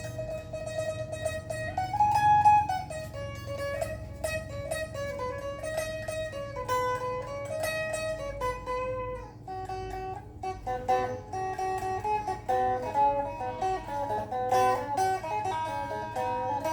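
A phin, the Isan three-string lute, plucked in a running melody of quick repeated notes. From about ten seconds in the notes come shorter and faster.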